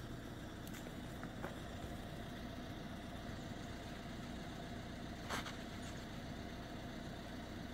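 Steady low hum of an idling engine, with a sharp click about five seconds in.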